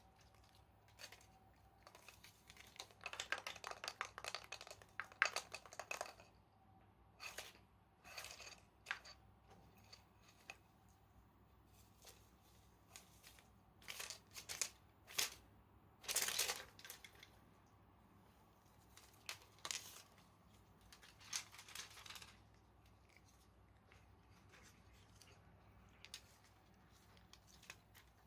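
Crinkly prey part of a Kashakasha Bunbun cat-teaser toy rustling in short bursts of crinkling, on and off with quiet gaps between.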